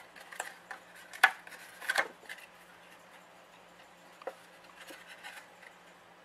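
A cardstock box being folded and creased into shape by hand: soft paper rustling with a few sharp clicks and taps, the loudest about a second in.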